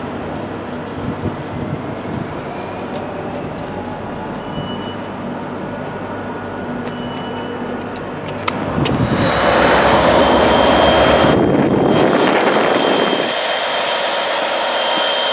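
Class 59 diesel locomotive's engine drone going on steadily after it has passed. About eight and a half seconds in, a louder Class 57 diesel locomotive pushing an electric unit takes over, its engine running with a steady high whine.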